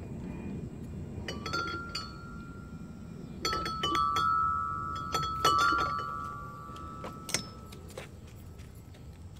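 Clanks and knocks on metal playground equipment, a few of them ringing on with a clear metallic tone for several seconds. There is a cluster of strikes about a second and a half in and again around three and a half and five and a half seconds.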